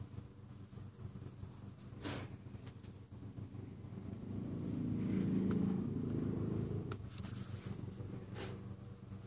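Stylus pen nib tapping and scraping on the glass screen of a Cintiq Companion pen tablet, with a few sharp taps about 2 s in and near the end. A low rumble swells and fades in the middle, over a steady low hum.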